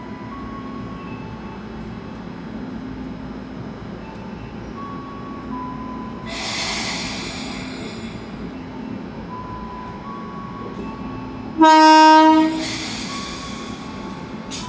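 KRL electric commuter train at a station platform: a hiss of air about six seconds in, then one loud horn blast lasting about a second near the end, followed by a fading hiss.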